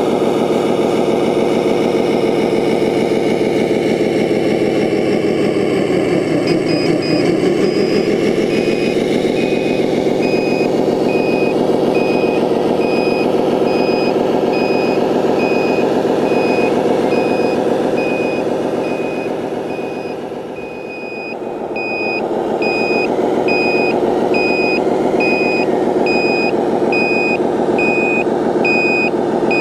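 Simulated diesel engine sound from the onboard sound module of a 1/14-scale RC Scania 8x8 dump truck, running steadily with a brief drop in pitch after a few seconds and a dip in level about two-thirds of the way through. From that first drop on, a reversing alarm beeps at a steady pace as the truck backs up.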